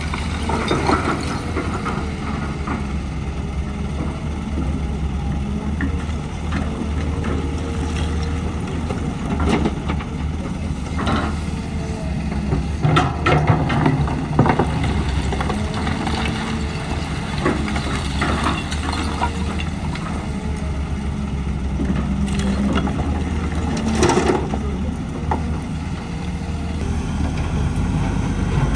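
Excavator's diesel engine running steadily under load, with scattered sharp metallic clanks and knocks as it works.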